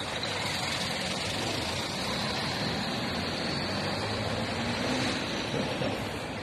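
Scania P400 fire engine's diesel engine idling steadily.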